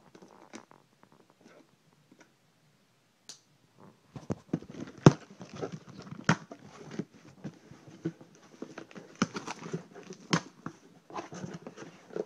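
A cardboard shipping box being cut and torn open with a pocketknife: a few faint clicks, then from about four seconds in a busy, irregular run of scraping, tearing and cracking cardboard and packing.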